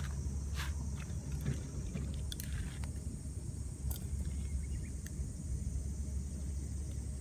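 Wind rumbling on the microphone, over a steady high insect chirring. A few light clicks and scuffs come and go through the first five seconds or so.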